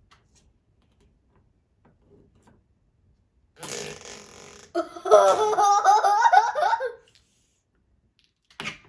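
FLARP noise putty pushed in its tub, letting out fart-like noises, together with laughter, starting about three and a half seconds in and lasting about three seconds; a shorter burst comes near the end.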